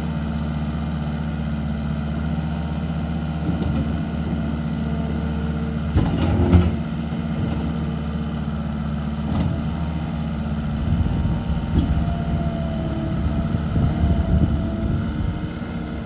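2011 New Holland L215 skid steer's diesel engine running steadily, with a loud clunk about six seconds in and uneven knocks through the second half.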